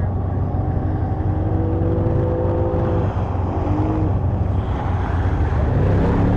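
ATV engine running while riding through mud, getting louder near the end as the throttle opens.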